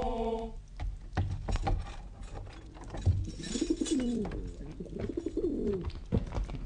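Pigeons cooing, several rising-and-falling coos, with scattered sharp clicks and knocks.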